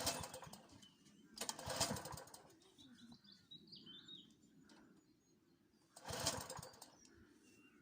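Tecumseh lawn mower engine being pull-started by its recoil cord three times: once at the start, again about a second and a half in, and again about six seconds in. Each pull gives a brief rasp as the engine turns over, and it does not catch. The owner puts this down to the engine needing more prime. Birds chirp faintly between the pulls.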